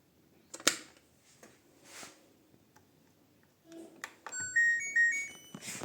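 A sharp click about a second in, then near the end the LG washer-dryer's power-on chime: a short melody of electronic beeps.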